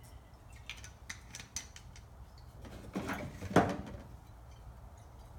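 A few light clicks, then a short louder rustle a little past halfway, as a small bottle and its wrapper are handled.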